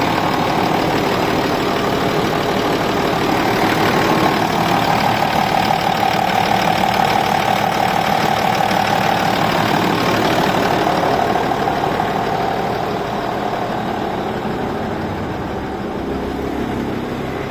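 Fiat 180-90 tractor's freshly rebuilt diesel engine running steadily at idle, with a steady mid-pitched whine over the engine note; it gets a little quieter in the last few seconds.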